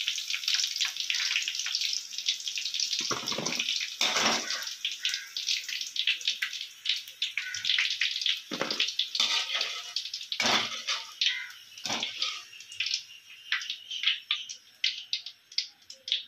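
Masala-coated cauliflower florets deep-frying in hot oil in a kadai: steady sizzling full of crackling pops, with a few louder pops, thinning out toward the end.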